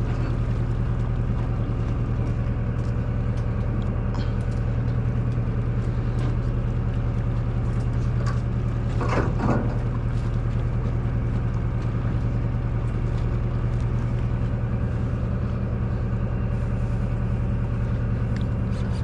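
A party fishing boat's engine running steadily: a constant low hum that holds one pitch throughout.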